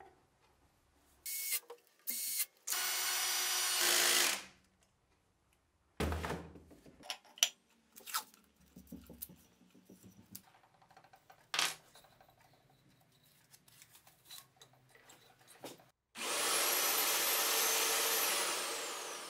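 Power drill: two short blips, then a steady high-pitched run of about a second and a half. Then clicks and knocks of metal parts being handled, and a second long run of about three seconds that winds down, its pitch falling near the end.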